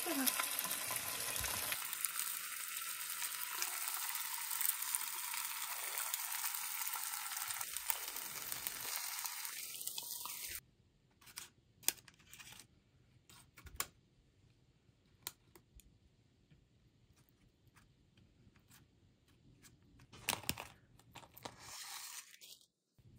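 Food sizzling in a frying pan, with small eggs frying in bell-pepper rings beside dumplings and vegetables. It is a steady hiss that cuts off suddenly about ten seconds in. What follows is faint, with a few small clicks and taps of food and containers being handled.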